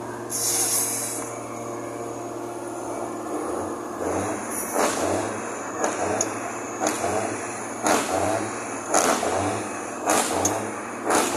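Roadtec asphalt paver's diesel engine running steadily, with a brief hiss just after the start. From about four seconds in, a hissing pulse comes about once a second.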